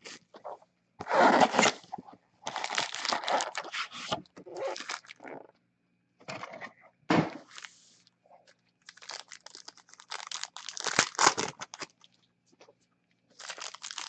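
Plastic wrapping of a trading-card box and its packs crinkling and tearing in bursts as gloved hands open the box and pull out the packs, with a sharp click about seven seconds in.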